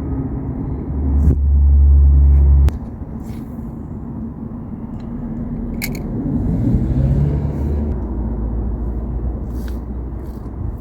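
Wind buffeting the microphone: a loud low rumble, heaviest in the first few seconds and cutting off abruptly, then settling to a steadier rumble.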